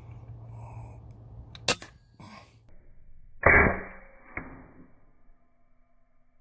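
A .25 calibre FX Impact PCP air rifle fires a single shot: a sharp crack just under two seconds in, followed about half a second later by a fainter report. About two seconds after the shot comes a louder, duller burst of noise, then a single click.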